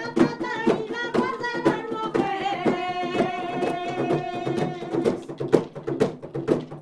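A waltz-time folk song sung to the steady beat of a square frame drum (pandero) and a shaken tambourine, with one long held sung note in the middle.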